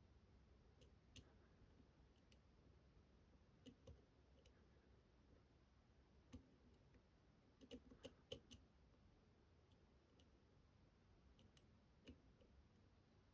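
Faint, scattered metallic clicks of lock picks working the pins of a tiered-key lock during picking, with a quick run of several clicks a little past the middle.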